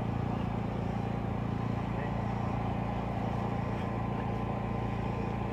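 A motor running with a steady, unchanging low drone.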